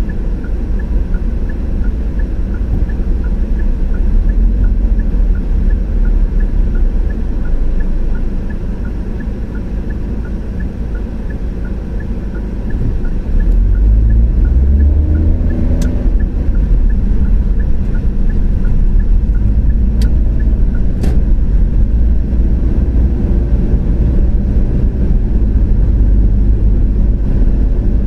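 Car driving along a road: a steady low rumble of engine and tyres, with a faint regular ticking in the first half. About halfway through, the engine note rises as the car accelerates, and the rumble stays louder after that.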